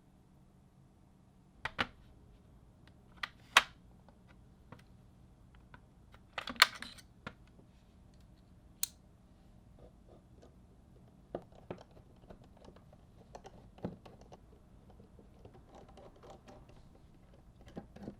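Irregular, widely spaced sharp clicks and taps of mechanical keyboard parts being handled. The loudest clicks come in the first nine seconds, followed by softer scattered taps and a light rustle.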